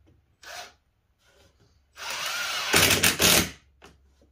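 Cordless drill working into wood: a short sound about half a second in, then a run of about a second and a half that grows louder and stops abruptly.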